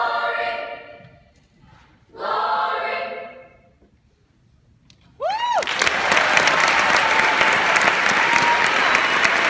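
Middle-school choir singing its last two chords, each held about a second and a half with a short pause between, then, after a moment of quiet, a whoop from the audience and loud applause.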